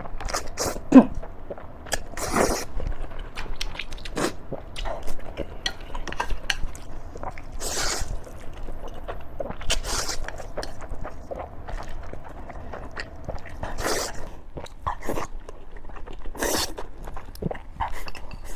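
A person chewing and biting into steamed pork, close to the microphone: irregular short mouth noises throughout, with one sharp click about a second in.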